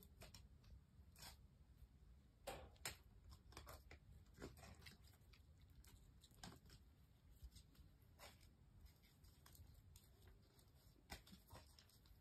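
Near silence with faint scattered scuffs and clicks from a puppy and an adult dog playing on concrete, the puppy rolling on its back and pawing.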